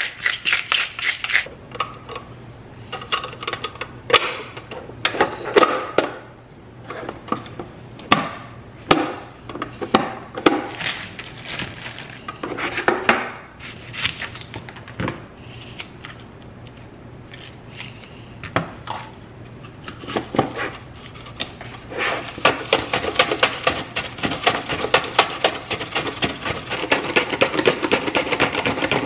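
A salt grinder twisted over a glass bowl with quick ticking for the first second or so. Then a kitchen knife cuts a red onion on a plastic cutting board in scattered sharp knocks. From about two thirds of the way in, onion is pushed back and forth over a box-type vegetable chopper's slicing blade in a fast, steady run of scraping strokes.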